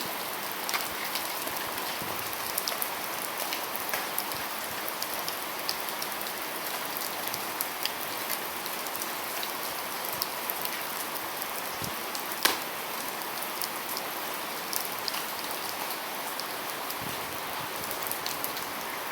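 Rain falling steadily, a constant hiss with many small drop ticks and one sharper drop about twelve seconds in.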